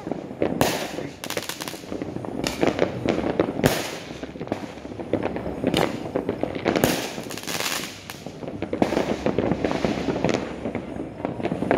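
Many fireworks going off close together: a continuous run of sharp bangs over dense crackling, with no pause.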